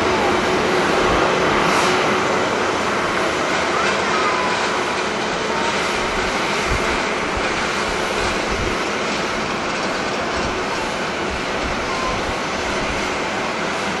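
Twin-engine jet airliner taking off at full power: a steady, broad engine roar that slowly fades as the aircraft climbs away, with gusts of wind buffeting the microphone.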